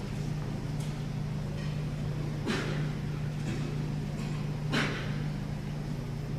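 Steady low hum in a large gymnasium, with a few scattered knocks and shuffles from a standing crowd and people walking off the floor; the two loudest knocks come about two and a half and five seconds in.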